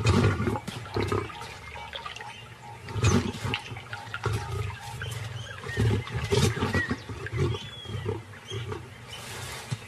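Lioness snarling and growling in a series of loud bursts, the loudest right at the start.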